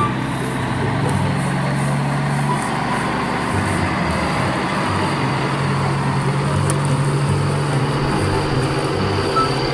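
Steady truck-engine rumble accompanying a large plastic toy dump truck towing a line of toy trailers across dry grass.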